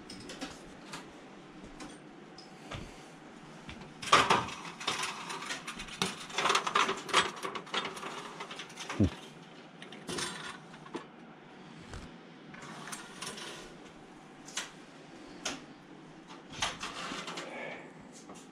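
Small steel drawers of a metal parts cabinet being handled, sliding and knocking with irregular clicks and metallic clatter. The clatter comes in clusters, busiest a few seconds in.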